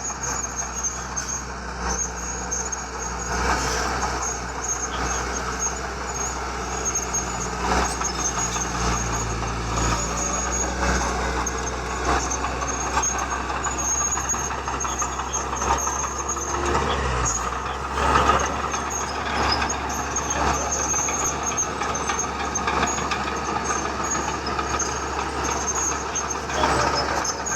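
Heavy diesel construction machinery running and working, with a steady low engine drone that drops in pitch about two-thirds of the way through. Scattered knocks and clanks and a thin high-pitched squeal come and go.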